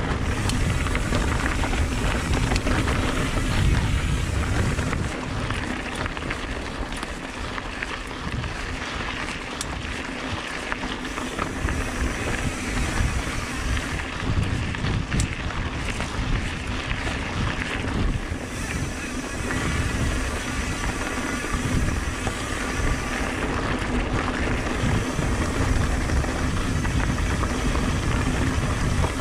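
Mountain bike descending a rough dirt trail: wind buffeting the microphone over a constant rumble and rattle of tyres and frame on rocky ground.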